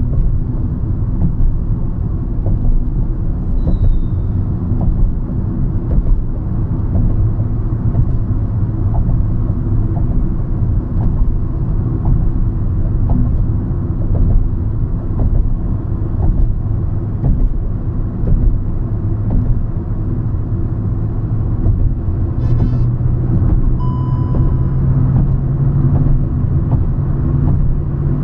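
Hyundai i20 Magna hatchback driving, a steady low engine and road rumble, with the engine note rising slightly near the end. A short high beep sounds near the end.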